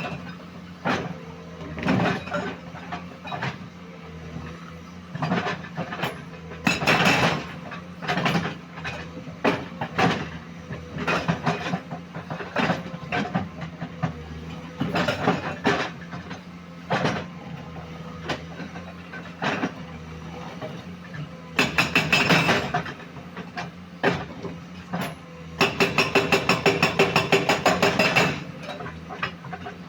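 Komatsu PC210 hydraulic excavator working: its diesel engine runs with a steady hum under repeated irregular metallic clanks and knocks. Near the end comes a fast, even clatter of about seven strokes a second lasting about three seconds.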